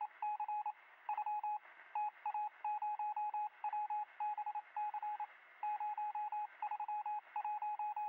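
Morse code beeping: one steady tone keyed on and off in quick groups of short and long beeps, with brief gaps between the groups.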